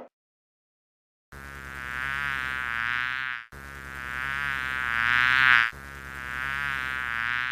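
Flying insect buzzing in three passes of about two seconds each, starting a little over a second in; each pass grows louder, then breaks off.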